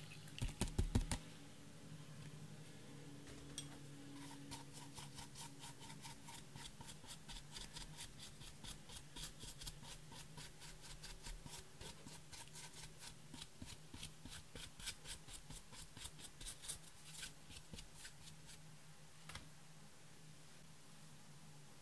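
A few sharp taps in the first second, then a long run of light, quick, scratchy strokes, several a second: a makeup brush scraping pressed eyeshadow powder out of a palette's pans. The strokes thin out about three quarters of the way in.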